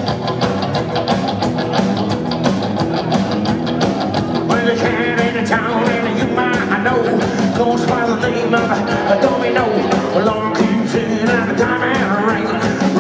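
Rockabilly band playing live: acoustic guitar, upright bass, electric guitar and drums over a quick, even beat. A man's voice starts singing about four and a half seconds in.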